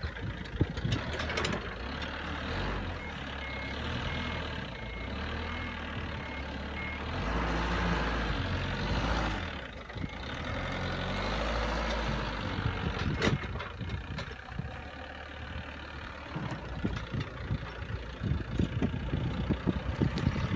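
Forklift engine running and revving up about eight seconds in, with a reversing alarm beeping about twice a second for a few seconds. Uneven knocks and rattles come near the start and over the last few seconds, with one sharp knock about two-thirds of the way through.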